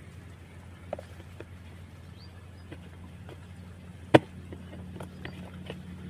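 Scattered light clicks and knocks of hands handling a plastic knapsack sprayer, with one sharp loud knock about four seconds in, over a low steady hum.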